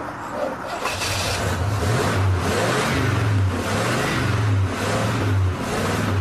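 An old car's engine, hard to start, catches about a second in and runs with its revs rising and falling unevenly as it is given gas.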